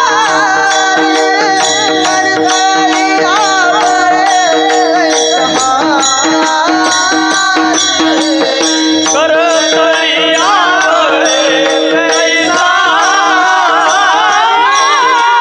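A male singer performing a devotional song in a wavering, ornamented line, accompanied by mridang drum strokes and a steady held drone.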